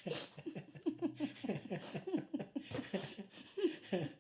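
Laughter: a run of short, quick ha-ha pulses, quieter than the talk around it.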